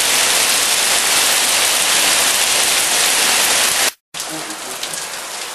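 Heavy rain and hail drumming on a corrugated plastic patio roof: a loud, dense, steady hiss, described as deafening. About four seconds in it cuts abruptly to quieter rain falling on flooded ground.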